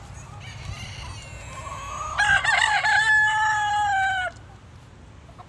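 A rooster crowing once: a loud call that rises and then holds level for about two seconds before cutting off, with fainter chicken calls just before it.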